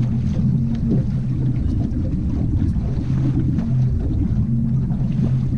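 Fishing boat's outboard motor running steadily at low speed, a low even hum, with wind rumbling on the microphone.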